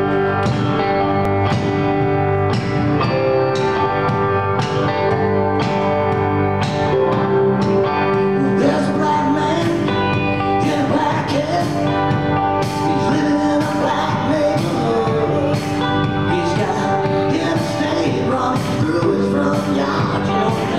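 Live rock and roll band playing: electric guitars, electric bass and a drum kit keeping a steady beat, with a voice singing over it from about halfway through.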